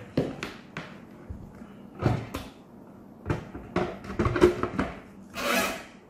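Handling of the plastic parts of a Xiaomi Deerma F600 ultrasonic humidifier: a series of light knocks, clicks and rubbing as the base unit is set down and the water tank is fitted on top of it, with a short rushing noise near the end.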